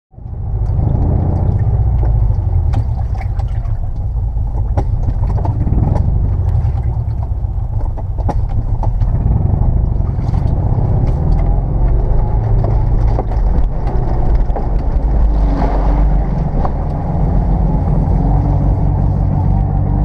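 First-generation Subaru Forester's flat-four engine, heard from inside the cab, running with a low rumble while down on power: a failed coil pack has cut two of its cylinders. Knocks and rattles come through in the first half as it drives down the rough bank, and river water surges and splashes against the car about three-quarters of the way through as it wades in.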